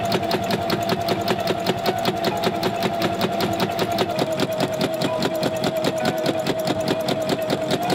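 Sewing machine running at a steady speed: rapid, even needle strokes over a constant motor whine.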